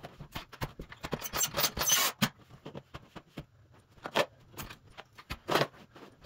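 Carpet being pressed and rubbed onto the tack strip pins at the wall while a carpet power stretcher is handled: a string of short scrapes and knocks, a few louder rasps among them.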